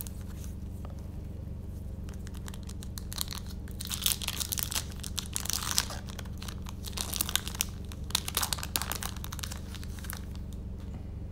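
A foil booster-pack wrapper of Yu-Gi-Oh! trading cards being torn open and crinkled by hand. It comes in two spells of crackling, about three and seven seconds in, over a steady low hum.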